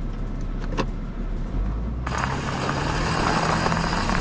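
Pickup truck engine working under load as it tries to pull a fifth-wheel trailer out of soft sand, which does not free it. The engine note strengthens about a second and a half in, and from about two seconds a loud rushing noise joins it.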